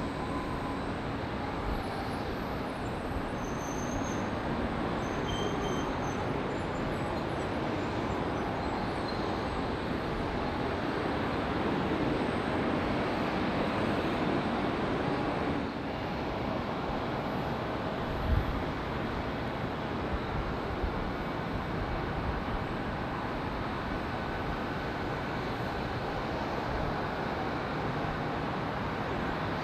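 Turbofan engines of airliners, a Boeing 737 and a Boeing 777, at takeoff power on a runway some distance away: a steady engine noise that swells about twelve seconds in and eases just before sixteen seconds. A brief low thump comes about eighteen seconds in.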